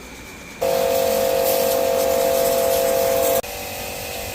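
A high-pressure spray jet washing an engine gear. It has a steady hiss with a few held tones. It comes on sharply about half a second in and drops to a lower, steady level near the end.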